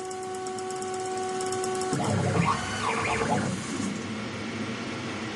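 Stepper motor whine, a steady pitched hum with overtones, that cuts off about two seconds in. Then comes a short burst of louder stepping and grinding with shifting pitch, and a steady hiss after it.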